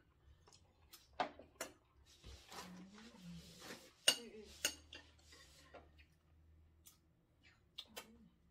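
Tableware clinking during a meal: scattered sharp clicks and taps of spoons and chopsticks against plates and bowls, the loudest about four seconds in.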